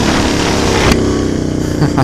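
Yamaha XJ6 inline-four motorcycle engine running with a loud aftermarket exhaust, a steady engine note with wind rushing over the microphone. A sharp click comes about a second in, after which the wind noise drops and the engine note is clearer.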